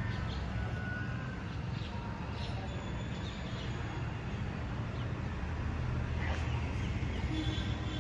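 Outdoor ambience: a steady low rumble of distant traffic, with a few faint bird chirps.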